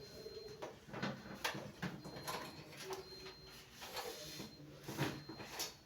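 Scattered light clicks and knocks of a power plug and its cable being handled at a wall socket, to connect the washing machine.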